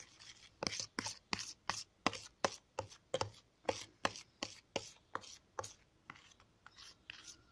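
Metal spoon stirring a thick paste of dish soap and baking soda in a plastic tub, clacking against the container about three times a second, stopping about six seconds in.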